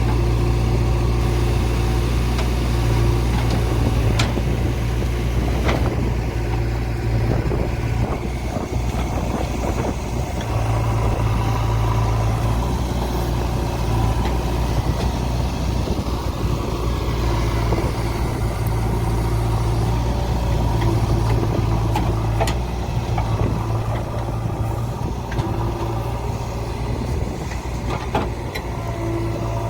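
JCB 3DX backhoe loader's diesel engine running steadily, its note shifting slightly now and then, with a few faint clicks.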